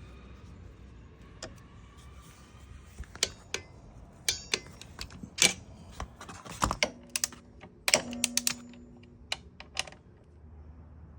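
Metal hand tools and small parts clicking and clinking in irregular taps and knocks. A metal piece rings briefly after a harder knock about eight seconds in.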